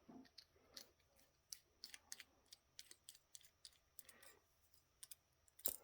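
Faint, irregular small clicks and taps of hands working on a small plastic-and-metal card reader and its circuit board, with one sharper click near the end.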